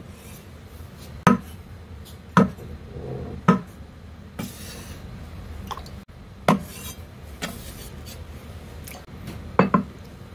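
Cleaver cutting soft tofu on a wooden chopping board: a sharp knock each time the blade goes through and strikes the board, several of them about a second apart.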